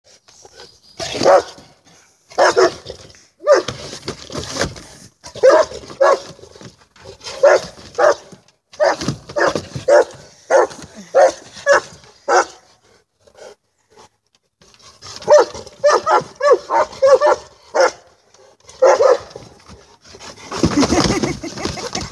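Dog barking in short volleys, over and over, with a pause of a couple of seconds midway. Near the end comes a longer, rougher stretch of sound.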